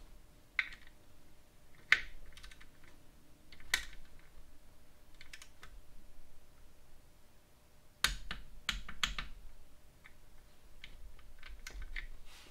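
Scattered light metallic clicks and taps from a torque wrench and socket as the oil drain plug on a BMW K1300S sump is tightened, with a quick cluster of clicks about eight seconds in.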